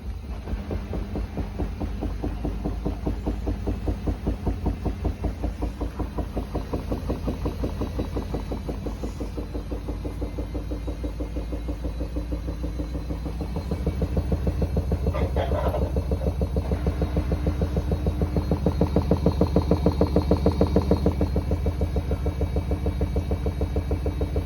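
Samsung washing machine on its final spin, making a weird, fast rhythmic pulsing noise. The noise steps up louder about 14 seconds in.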